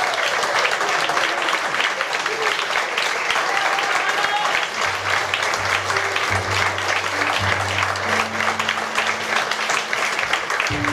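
Audience applauding steadily, with low bass notes playing underneath from about halfway in.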